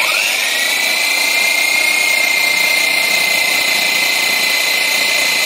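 Parkside PSTD 800 B2 corded 800-watt jigsaw switched on and sawing through a softwood board with the pendulum action off. The motor starts suddenly, its high whine climbing within a fraction of a second to a steady pitch that holds as the blade cuts.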